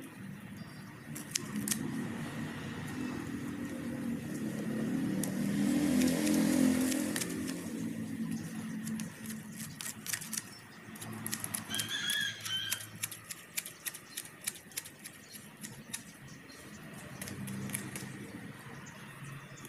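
Hand grass shears snipping carabao grass, a quick run of sharp metal clicks. A motor vehicle passes, its engine rumble loudest about six seconds in.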